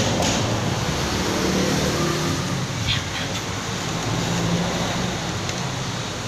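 Electric hand drill clamped in a bench vise, its motor running steadily and spinning a workpiece in the chuck, used as a makeshift lathe to turn an O-ring groove in a homemade PCP valve.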